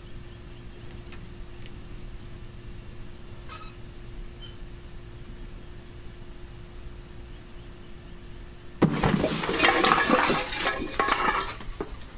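A faint steady hum, then about nine seconds in a sudden loud crash and clatter lasting about three seconds as a person falls to the ground.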